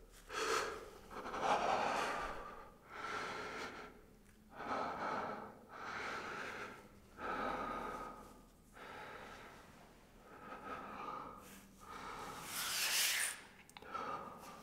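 A man breathing heavily, about ten loud breaths in and out, each roughly a second long with short pauses between, the strongest breath near the end.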